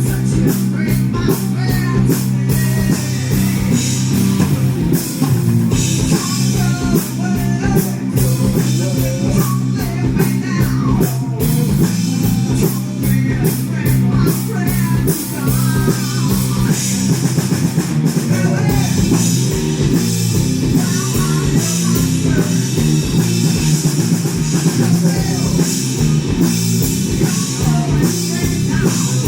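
Live progressive rock band playing, with drum kit and guitar.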